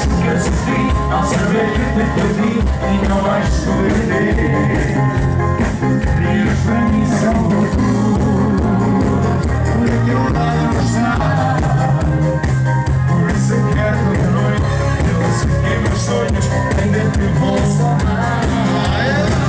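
Live band playing a pop-rock song loudly and steadily, with a drum kit keeping a regular beat under bass and keyboards.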